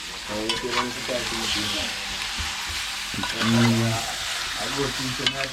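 Curried duck frying in a pot over a charcoal fire, a steady hissing sizzle, with a man's voice sounding briefly a few times over it.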